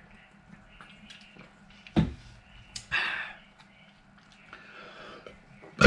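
Plastic water bottle set down on a wooden desk with a sharp knock about two seconds in, after a swallow, followed by a short breathy sound. Soft rustling follows as hands are wiped on a paper napkin.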